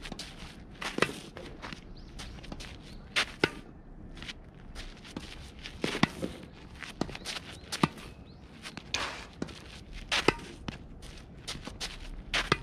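Tennis balls struck by a racket and bouncing, sharp knocks every second or two, with feet shuffling on a dirt court between the shots.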